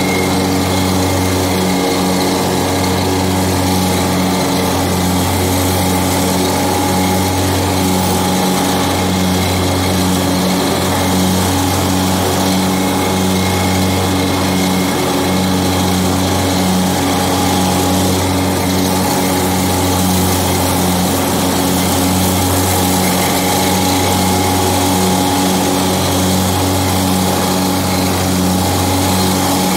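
John Deere X724 garden tractor's engine running steadily with the mower deck engaged, cutting grass.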